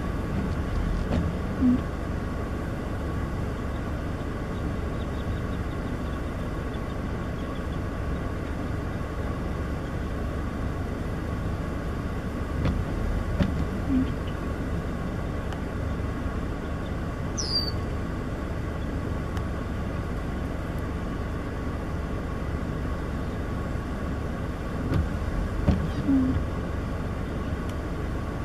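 Steady outdoor background rumble. Three short, low sounds stand a little above it, about twelve seconds apart, and a brief high chirp comes near the middle.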